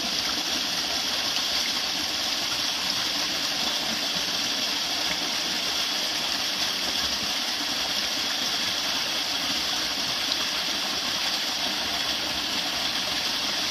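Small rocky stream spilling over a low ledge in a little cascade: steady, even sound of running water.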